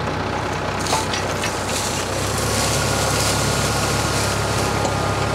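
Tractor engine running under load while its PTO-driven three-point post hole auger bores into the ground, the engine note growing louder about two seconds in.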